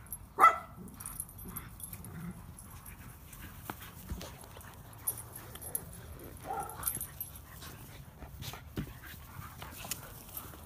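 Dogs wrestling in play. One dog gives a short, sharp cry about half a second in, and there is another brief cry a little past the middle, with scattered faint clicks between them.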